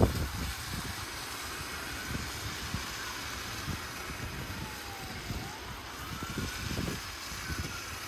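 Motorcade vehicles passing slowly on a snowy street: a steady hiss of traffic, with a faint siren wailing slowly up and down.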